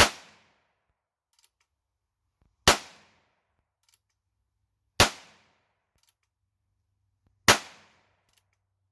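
Heritage Rough Rider .22 LR single-action revolver carbine fired four times, single shots about two and a half seconds apart, each a sharp crack that dies away within half a second.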